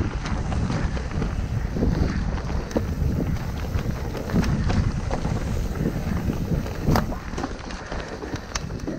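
Mountain bike riding down a rough trail: wind buffeting the microphone over a steady tyre rumble, with frequent clicks and rattles from the bike and a sharper knock about two-thirds of the way through.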